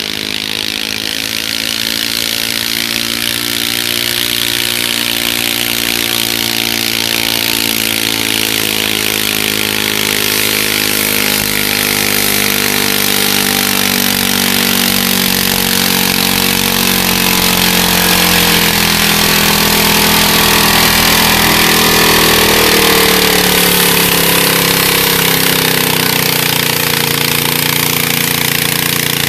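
Garden pulling tractor's engine running flat out under load, a loud raspy high-revving drone. It grows slightly louder until about three-quarters of the way through, then its pitch falls steadily over the last several seconds as the engine slows.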